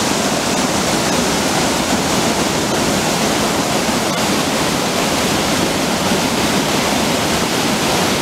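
A stream swollen by heavy rain, rushing fast down a stone channel as a loud, steady rush of water.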